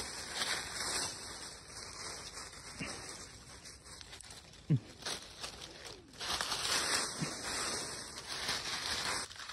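Dry leaf litter crunching and crackling and twigs brushing as someone pushes on foot through dry thorny scrub, louder near the start and again for a few seconds near the end. A short low falling sound stands out about halfway through.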